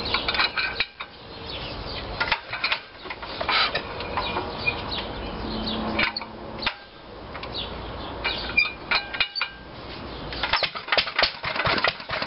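1946 International Harvester LB single-cylinder engine being hand-cranked at the flywheel after one choke, with irregular metallic clicks and clanks of the crank and engine, with short pauses. About ten seconds in, the engine catches and runs with quick, even firing strokes.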